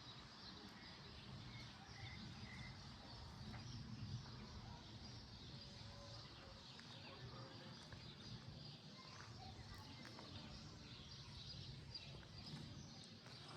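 Faint outdoor ambience with a few short, distant bird chirps.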